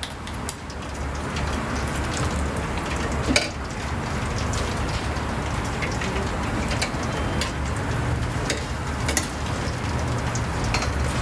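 Oyster omelette frying in oil: a steady sizzle with scattered sharp clicks over a low steady hum.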